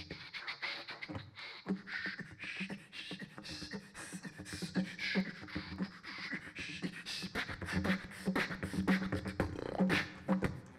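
Beatboxing into a handheld microphone: a fast run of mouth-made kicks, snares and hi-hat clicks. A steady low didgeridoo drone sits underneath, stronger in the second half.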